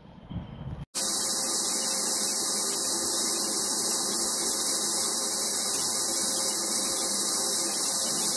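Steam locomotive S15 No. 506 blowing off steam at her safety valves: a loud steady hiss that starts abruptly about a second in, after a faint low rumble.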